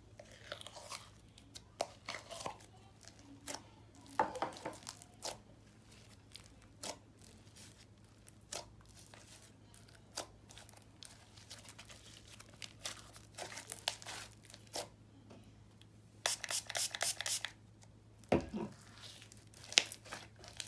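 Butter-clay slime with a snow fizz layer being stretched, pulled apart and pressed by hand: scattered soft clicks, pops and tearing crackles, with a quick run of crackles near the end.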